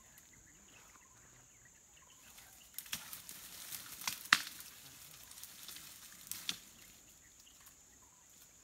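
Rustling of leaves and brush for about four seconds, with several sharp snaps of breaking branches, the loudest a little past the middle.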